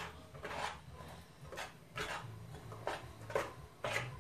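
Metal spoon scraping and stirring around a stainless steel pan of sugar melting into caramel, in short irregular strokes about every half second to a second.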